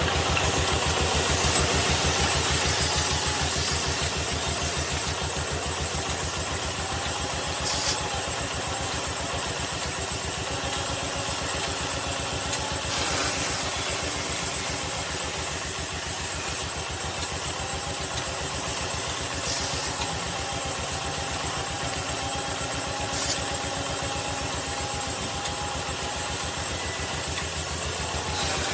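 Wood lathe running steadily: a motor hum with a fast, even pulse and a steady high whine, with a few short ticks along the way.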